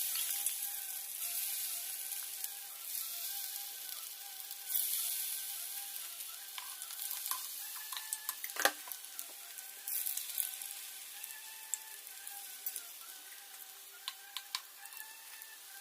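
Potato fingers frying in hot oil: a steady sizzle with scattered pops and crackles and one sharper crack about halfway through, slowly getting quieter.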